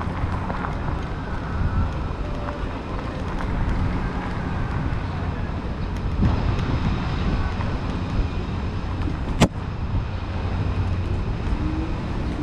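Steady low rumble of wind and rolling noise on a moving ride, with one sharp click about nine and a half seconds in.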